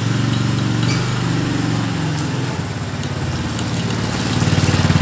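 Handheld power tool running against the hub motor of a Giant 133S Plus electric scooter, a steady pulsing motor hum that eases off in the middle and grows louder again near the end, as the motor's casing bolts are being worked.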